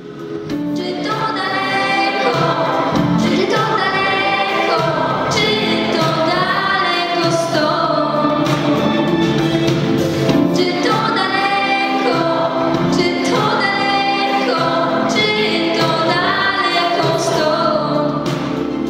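A young girl singing a song into a handheld microphone with musical accompaniment, in long held notes that bend in pitch.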